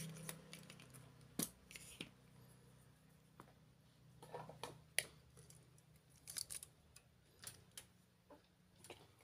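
Scattered light clicks and taps from hands working a drill's power cord, plastic plug parts and a spring-loaded wire stripper, the sharpest click about five seconds in.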